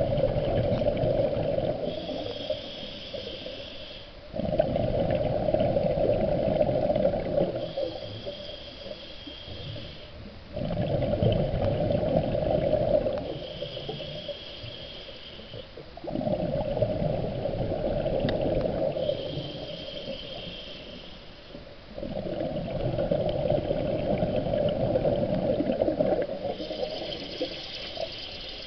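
A scuba diver breathing through a regulator underwater, about every six seconds: each breath is a short hiss of the demand valve on the in-breath, then a louder, longer rumble of exhaled bubbles.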